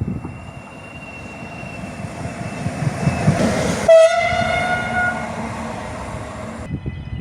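Train horn sounding a long, steady chord over the rumble and wheel clatter of a passing train. About four seconds in, the horn switches to a different, louder chord, and it cuts off suddenly near the end.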